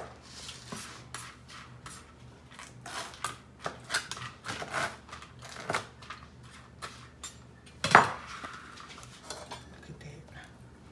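Chef's knife slicing cucumber on a cutting board: irregular knocks of the blade against the board, with one louder knock about eight seconds in.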